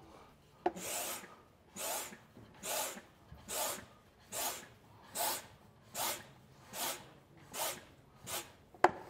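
Hand-pumped vacuum fluid extractor being pumped with steady strokes, one rasping whoosh about every 0.8 s, drawing a vacuum to suck gear oil out of the rear differential through the fill hole. A single sharp click near the end.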